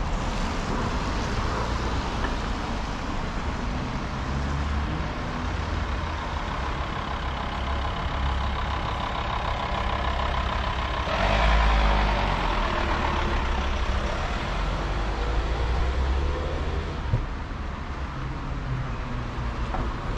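Road traffic on a city street: cars and vans driving past with a steady low rumble. One vehicle passes closer and louder about eleven seconds in.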